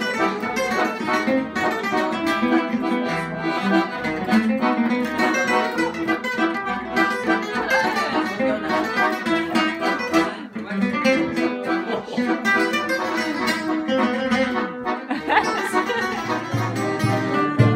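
Live gypsy-jazz (manouche) music: an acoustic jazz guitar strumming and picking together with a Victoria accordion's sustained reed chords. Near the end a deeper pulsing beat joins in.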